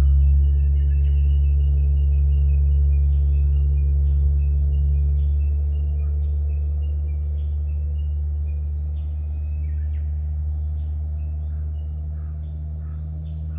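Small birds chirping over and over, short repeated calls, over a loud steady low hum that slowly fades away.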